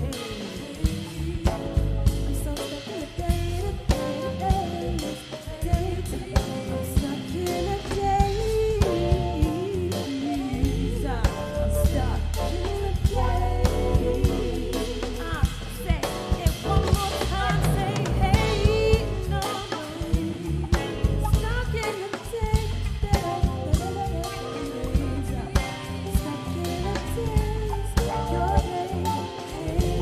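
Live band music: a woman's voice singing a melody over drum kit and keyboard, with a strong bass underneath.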